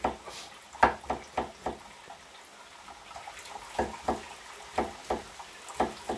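Kitchen utensils clattering: a series of light, sharp knocks in loose groups of two to four, with a quieter pause in the middle.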